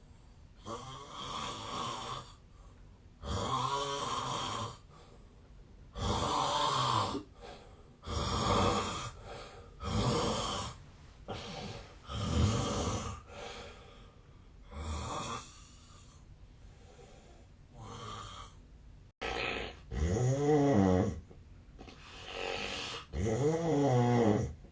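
A sleeping man snoring heavily, one loud rasping snore on breath after breath, roughly one every one to two seconds. Several of the snores carry a pitched tone that rises and then falls.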